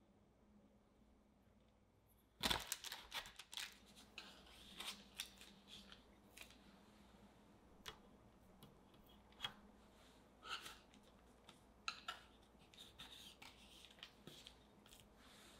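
Handling sounds as chilled cookie dough rounds are lifted off parchment paper and laid on a baking tray: a sharp knock about two and a half seconds in, then scattered light taps, clicks and brief rustles of parchment paper.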